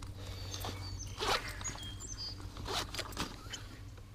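Camera lenses being wiped clean: a few short rasping, rubbing strokes, over a low steady hum.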